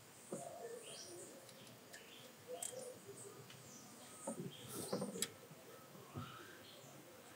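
Faint bird chirps throughout, with a few light metal clicks and knocks as the new crankshaft position sensor and its bolt are fitted by hand, clustered about four to five seconds in with one sharp click.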